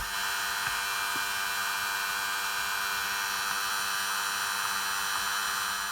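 Steady electronic hiss and buzz with several fixed whining tones from an RSNAV audio unit: the interference noise that the unit produces, which distorts whatever music it plays.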